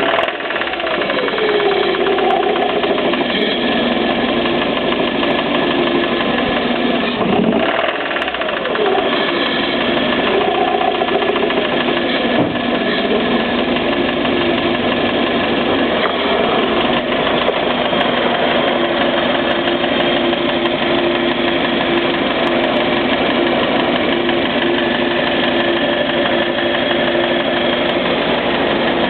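Toyota MR2 engine running with an unidentified noise that the owner believes comes from the top end, though the cam and followers look fine. Revs fall back a couple of times in the first ten seconds, then it runs steadily.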